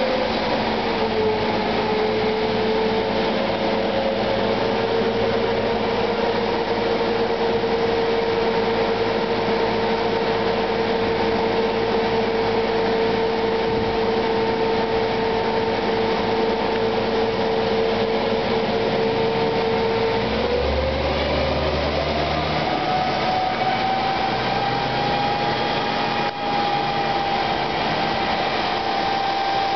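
Car running on a chassis dynamometer during a smog test, with a steady mechanical whine over a constant background noise. About twenty seconds in the whine rises in pitch and then holds steady at the higher pitch.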